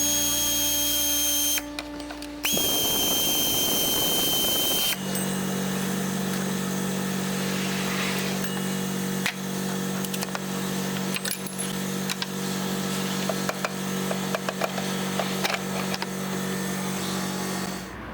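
A power tool running in two bursts, a steady high whine with hiss, then a steady low machine hum with scattered clicks.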